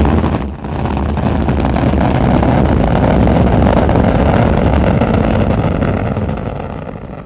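Rocket engine roar: a loud, rushing rumble that dips briefly about half a second in, then runs steady and fades away near the end.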